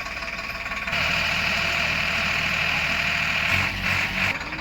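Heavy diesel engine running, rising to a louder, busier note about a second in, with a few low thuds near the end before it settles back.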